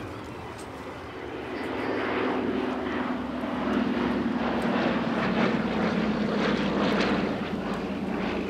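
Douglas C-47 Skytrain (DC-3) flying a low pass, its twin Pratt & Whitney R-1830 Twin Wasp radial engines and propellers droning. The drone grows louder over the first few seconds, and its pitch sags slightly as the aircraft goes by.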